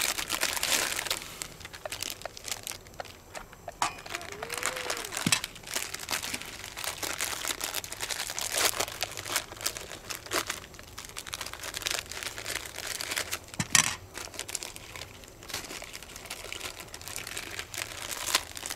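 Plastic wrappers of MAMA instant noodle packets crinkling and rustling as they are handled, in irregular crackly bursts.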